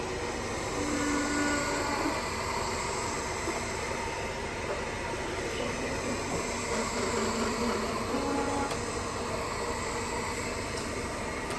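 Roomba robot vacuum running with a steady, even motor-and-brush noise, with a few brief faint tones over it.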